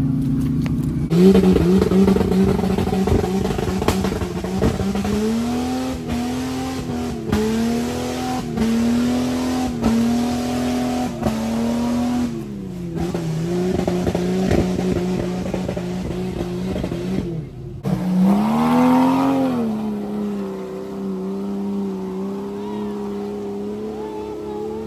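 Off-road 4x4 SUV engines revving hard under load in deep mud, the pitch swelling and sagging again and again as the throttle works, then holding at a steady high rev near the end.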